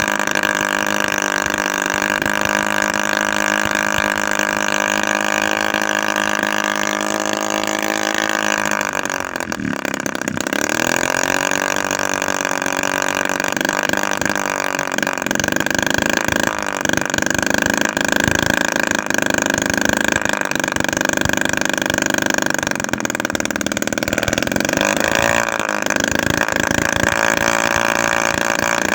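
Homemade 7cc two-stroke engine, built from an old refrigerator compressor with a 25 mm bore and 16 mm stroke, running at a steady high speed. Its pitch dips sharply and climbs back about nine seconds in, and wavers again near the end.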